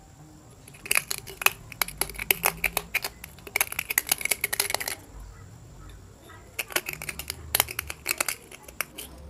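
Broken glass fragments clinking and rattling inside an opened light bulb as its insides are cleared out. The clinks come in two spells of quick sharp clicks, the first starting about a second in and the second a little past halfway.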